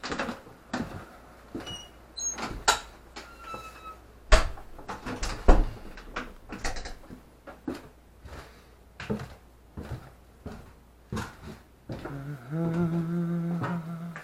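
Footsteps on a staircase: a run of uneven knocks and thuds, with a few faint creaks. About twelve and a half seconds in, a steady low hum starts.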